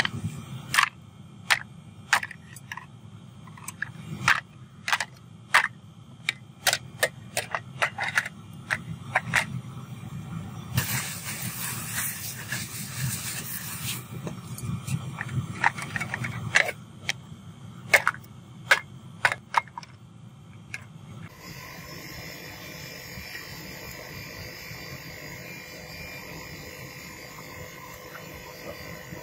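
Cast aluminium ingots being knocked out of an upturned steel muffin-tray mould: a string of sharp metal knocks and clatters over about twenty seconds, with a low hum underneath and a brief hiss about halfway. After that the knocking stops and only a steadier, quieter background noise remains.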